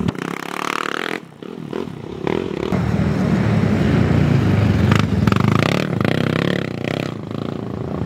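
Racing ATV engines revving hard, falling away briefly about a second in, then running loud and steady again.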